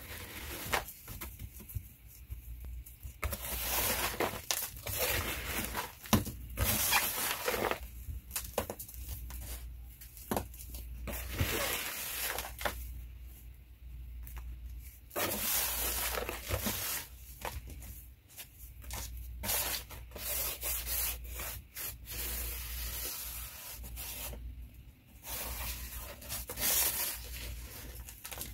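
A hand crumbling, rubbing and sprinkling dry cement powder and gritty soil in a plastic tub: crackling, gritty rustling as clumps are squeezed and grains and pebbles fall, in stretches broken by brief pauses.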